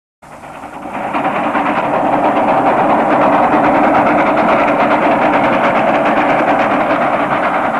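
A loud, steady mechanical noise with a fast rattle, starting abruptly and building to full level over about a second.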